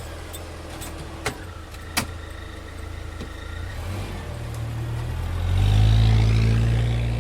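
A car engine running at a low, steady idle, with two sharp clicks early on. From about four and a half seconds in it revs up and runs much louder, easing off a little near the end.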